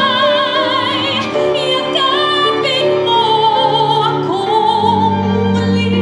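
A woman singing a ballad live into a microphone over instrumental accompaniment, holding long notes with a wide, even vibrato.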